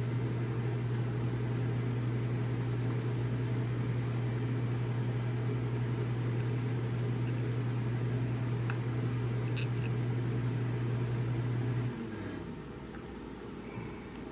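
A steady low machine hum that cuts off abruptly about twelve seconds in, with a few faint clicks of small wires being pushed into a connector.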